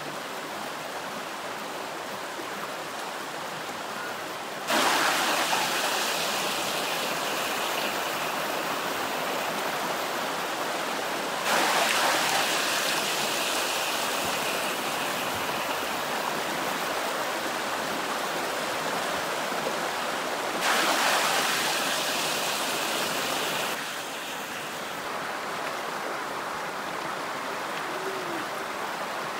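Shallow mountain stream rushing and splashing over smooth rock slabs in a steady wash of water noise. The sound jumps louder suddenly three times and drops back near the end.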